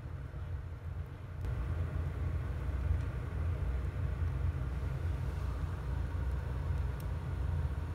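Steady low rumble of an eco-pea coal retort burner at work in a boiler, its flame burning with the air fan blowing, growing a little louder about a second and a half in.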